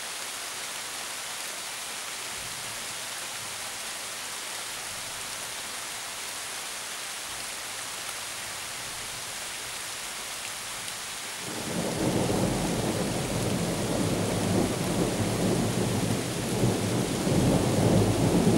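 A steady hiss of rain, then about twelve seconds in a long roll of thunder builds and keeps rumbling, growing louder toward the end.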